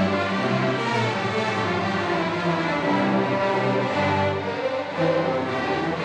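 A massed string orchestra of violins and cellos playing a sustained passage, held notes shifting in harmony every second or so.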